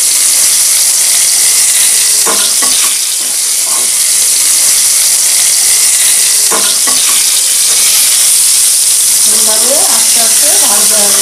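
Stuffed pointed gourds (potol) shallow-frying in oil in an iron kadai on a low flame, with a steady sizzle. A metal spatula clicks and scrapes against the pan a few times as the gourds are turned, with a brief squeaky scrape near the end.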